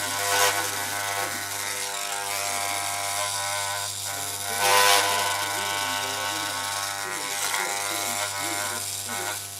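Corded electric hair clippers with a comb guard buzzing steadily, with a louder rasp about half a second in and again around five seconds as the blade cuts through hair.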